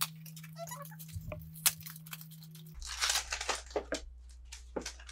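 A small cardboard toy box and its packaging handled and opened by hand: scattered clicks, then a short burst of tearing and crinkling about three seconds in.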